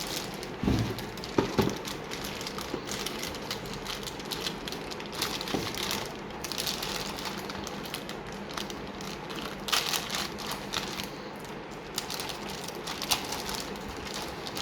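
Rustling and crinkling of packaging as motherboard box contents are handled, with a couple of sharp knocks about a second in and scattered clicks.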